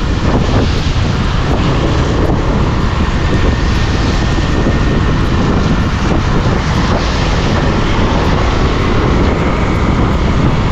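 Steady loud rush of wind buffeting the microphone on a moving motorcycle, mixed with the motorcycle's engine running.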